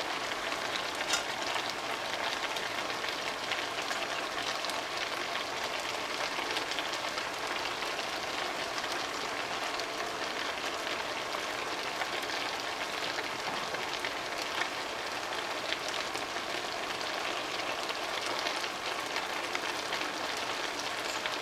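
Vegetable stir-fry in a thickened sauce sizzling and bubbling steadily in a nonstick skillet on an electric stovetop, a fine even crackle, with a single click about a second in.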